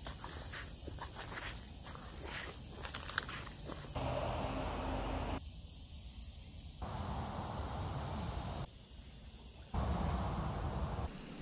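Steady high-pitched insect chorus in a cypress swamp, with scattered short clicks in the first few seconds. From about four seconds in, the sound changes abruptly every second or two as separate outdoor recordings are cut together, some with a low rumble under the insects.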